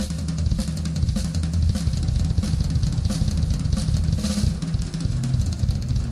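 Full drum kit played hard, with rapid bass drum strokes under snare hits and cymbal crashes, and a big cymbal wash about four seconds in.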